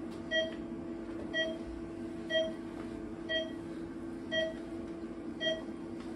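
Short electronic beep repeating evenly about once a second, six times, over a steady low hum.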